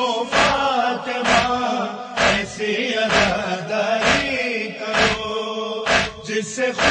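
Urdu noha, a Shia mourning chant, sung over a steady thumping beat about once a second.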